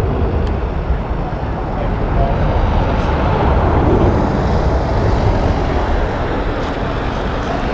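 Engines of a large aircraft passing close by the runway fence: a loud, steady rumble that swells slightly midway.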